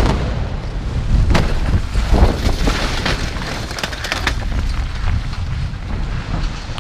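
Concrete road bridge collapsing as its piers are blasted with explosive charges: another sharp bang about a second and a half in, then a long low rumble with repeated crashes as the deck falls to the ground, slowly fading toward the end.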